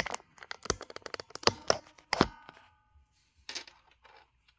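Clicks, knocks and rattles of a coin-inspection microscope stand being handled and lowered: a quick clatter of sharp knocks for about two seconds, a short ringing squeak just after, then a couple of lone clicks near the end.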